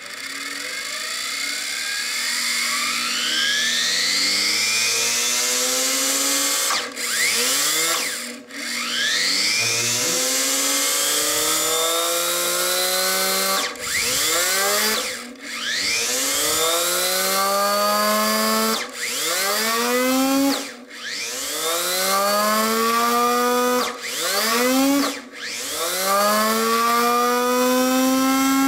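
Dirt Devil Featherlite (Royal 085570) universal vacuum motor, with a stripped impeller on its shaft, spinning up with a rising whine. Its direction is then switched back and forth about eight times, and each switch briefly cuts the whine before it sags and winds back up.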